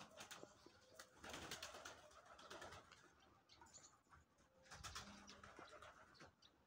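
Faint cooing of domestic pigeons, with a soft low coo about five seconds in, among scattered small clicks.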